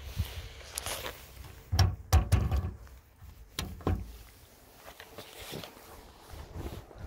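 Metal clicks and clunks from a chrome recessed T-handle latch on a trailer's steel storage box being worked by hand: a cluster of sharp knocks about two seconds in and two more a little before and at four seconds, with wind rumbling on the microphone.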